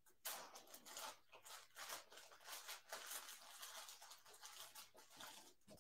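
Faint, irregular rustling and crinkling.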